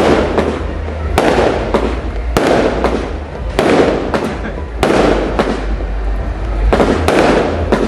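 Diamond Fireworks 'Good Days' 49-shot cake firing shot after shot, about one to two a second. Each shot is a sharp report followed by a spreading hiss as the stars break.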